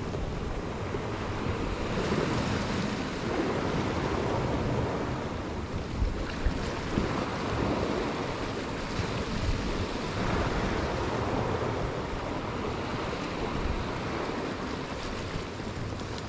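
Sea waves washing against a rocky shore, swelling and easing every few seconds, with wind on the microphone. Two short knocks come about six seconds in.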